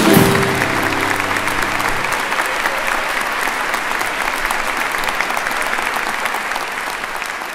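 Audience applauding. The final chord from the choir and piano rings on under the clapping and dies away over the first two seconds.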